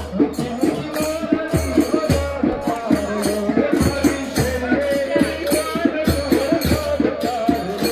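Devotional kirtan music: voices singing a wavering chant melody over a steady low drum beat and rattling hand percussion.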